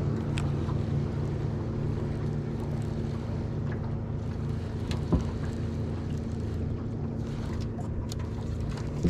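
A boat's motor running at a steady pitch, with an even hiss of rain and wind over it, and a single knock about five seconds in.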